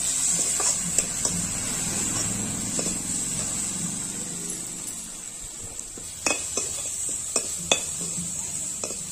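Onion-and-spice masala with ginger-garlic paste sizzling in a metal kadai, stirred with a perforated steel ladle that scrapes and clinks against the pan. There is a steady hiss, and a few sharp clinks come about six to eight seconds in.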